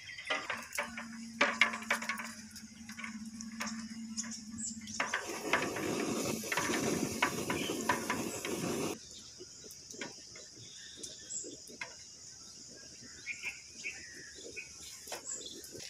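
Eggs being put into a large aluminium pot of water, knocking and clinking against the pot and each other in scattered clicks, with a few seconds of water sounds from the pot in the middle that cut off suddenly. Insects buzz steadily in the background.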